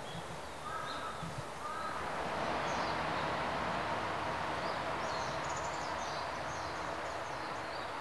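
Forest ambience: a steady rushing hiss that grows louder about two seconds in, with small birds chirping high above it and two short calls in the first two seconds.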